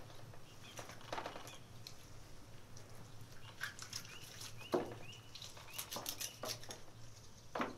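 Knife cutting raw chicken into pieces on a large metal tray: scattered taps and clicks, a sharper knock about halfway through and another near the end.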